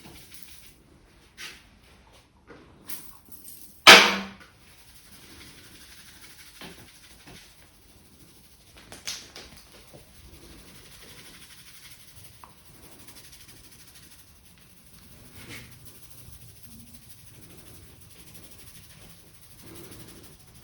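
Head massage with oil: faint rubbing of hands on hair and scalp, broken by a few short, sharp sounds, the loudest about four seconds in.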